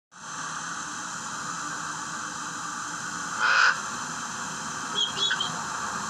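Eclectus parrot giving one short, harsh squawk about halfway through, then a few brief high chirps near the end, over a steady hiss of recording noise.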